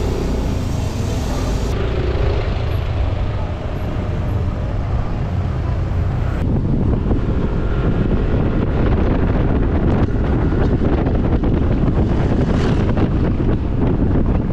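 Heavy wind rumble on the microphone while riding a motor scooter, the scooter's engine and tyre noise running beneath it. The rumble grows thicker about six seconds in.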